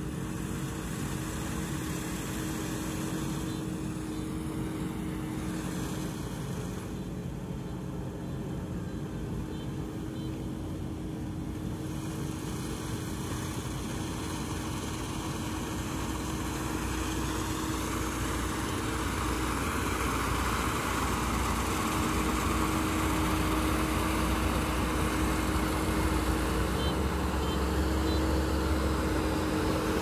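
Kubota ZR6130 combine harvester running as it cuts rice: a steady diesel-engine and machinery hum with a held droning tone. It grows louder over the second half as the machine comes closer.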